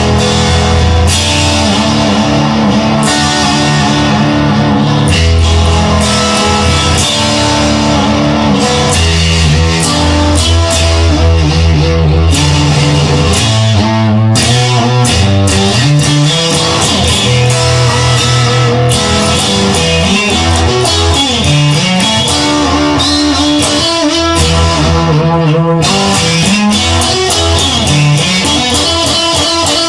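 Guitar-led rock music with bass, playing steadily and loud.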